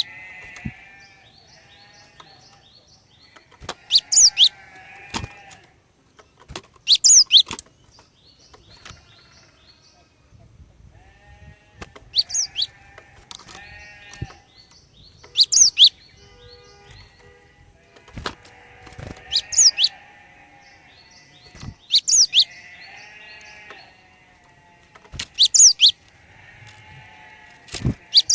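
Female cinereous tit (glatik batu) calling in repeated bouts about every three seconds: a few sharp, high notes, then a buzzy, chattering call.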